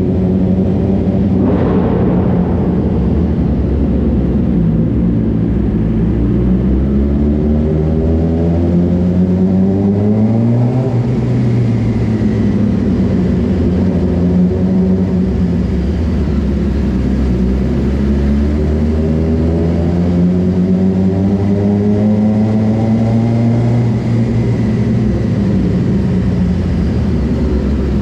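Suzuki GSX-R600 sport bike's inline-four engine under way inside a parking garage. Its pitch climbs slowly for several seconds and then drops back, twice. There is a short sharp noise about a second and a half in.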